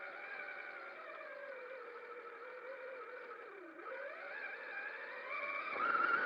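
Electric motor whine of a Traxxas Summit RC truck, rising and falling in pitch with its speed. It slows to a low point a little past halfway, then speeds up again, louder near the end.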